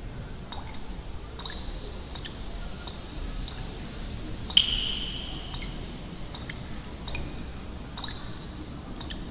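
Bathroom faucet dripping: faint scattered drips and clicks, with one clear plink of a falling drop about four and a half seconds in that rings briefly as it fades.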